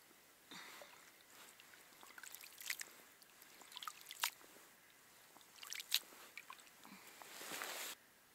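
Wet lake weeds being pulled up out of an ice-fishing hole and handled: faint squishing and dripping water with scattered small clicks. A short rush of noise near the end stops abruptly.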